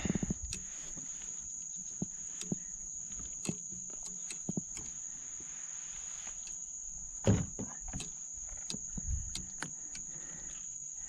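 A steady, high-pitched insect chorus. Scattered clicks and knocks come from a redfish being handled and laid on a measuring board in a plastic kayak, the loudest a thump about seven seconds in.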